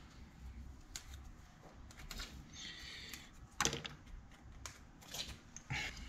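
Faint handling sounds of tools at a brick wall: a scatter of small clicks and taps, with a brief scratch about halfway through and a sharper click just after it.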